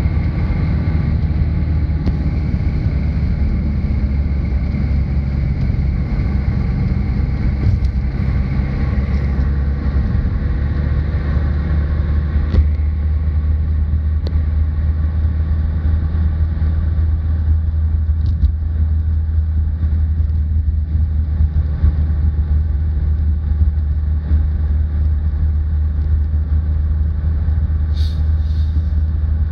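Steady low rumble of a car driving at road speed, heard from inside the cabin: engine and tyre noise with no gear changes or hard revving. A faint high whine fades out about a third of the way in, and a brief high-pitched sound comes near the end.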